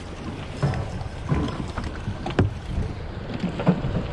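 Wind buffeting the microphone over choppy sea, with water slapping against a small boat's hull and a few irregular knocks.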